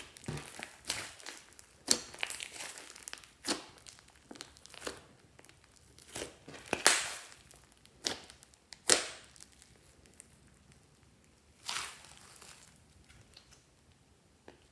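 Fluffy slime mixed with small foam beads being squeezed, folded and stretched by hand: a run of irregular sticky pops and squishes. A few pops are sharper and louder, about 2, 7 and 9 seconds in.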